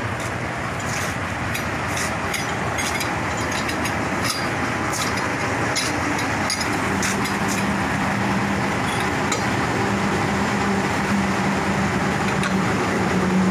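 A running engine, a steady mechanical noise, with a steady hum joining about halfway through and scattered light clicks in the first half.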